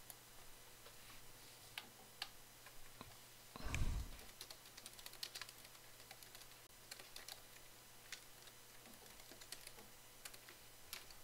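Computer keyboard typing: faint, irregular keystroke clicks as a command is typed. A brief low thump about four seconds in.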